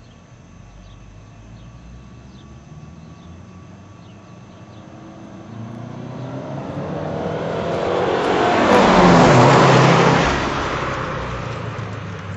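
A 2004 Subaru Forester XT's turbocharged flat-four, breathing through a 2006 STi cat-back exhaust, driving past. The engine and exhaust build over several seconds, are loudest about nine seconds in, then fade away.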